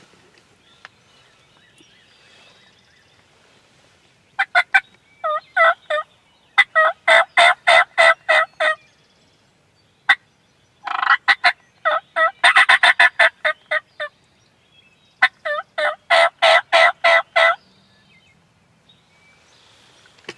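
Turkey calling: five runs of loud, evenly spaced repeated notes, the densest run lasting about three seconds in the middle, with short pauses between runs.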